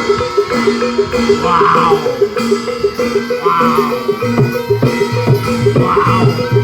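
Javanese barongan accompaniment: drums under a fast, repeating pattern of struck pitched percussion, with the drum strokes growing heavier about four seconds in.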